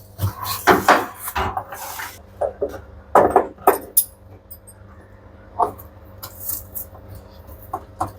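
Irregular clunks, clicks and rattles of metal and plastic parts as a shock-absorber damper is unlocked and worked free from a front-loading washing machine's tub.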